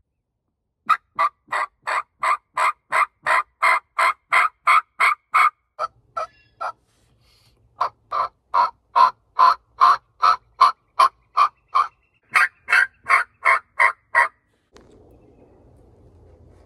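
A turkey yelping: two long runs of evenly spaced yelps, about three a second, with a short break in the middle, stopping about fourteen seconds in.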